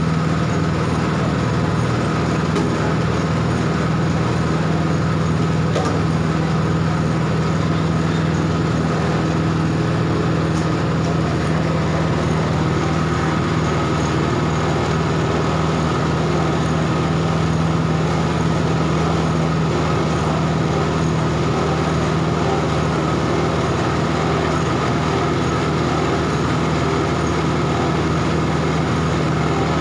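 Steady, unbroken hum of an electric motor driving a coconut processing machine, running without load changes.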